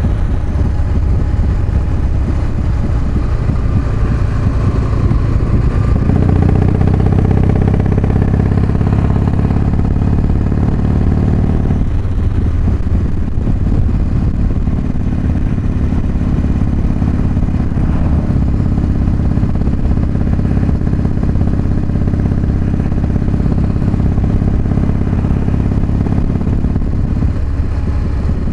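Motorcycle engine running under way with its ignition timing advanced, heard through a microphone inside the rider's helmet. The engine note grows louder about six seconds in, with brief dips about twelve seconds in and near the end.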